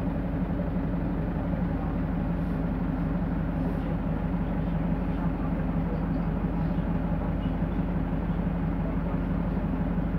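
The Perkins Phaser 110Ti four-cylinder turbo-diesel of a 1998 Autosan H6-20.03 bus idling steadily, heard from inside the bus.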